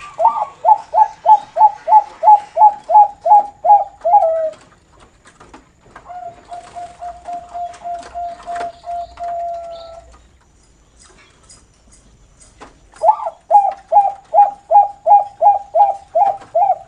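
Perkutut Bangkok (zebra dove) singing its 'noklak' song: a run of about a dozen short coos, each falling slightly in pitch, about three a second, ending on a longer, lower coo. This is followed by a softer, even rolling trill and then a second loud run of coos near the end.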